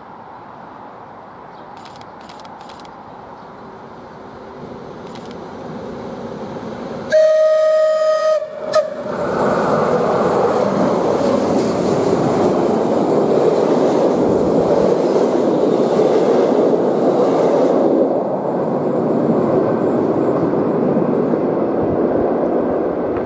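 A train approaching, its noise swelling, then sounding its horn: one long single-pitched blast followed by a short second one. The train then passes close by with a loud steady rush of running noise.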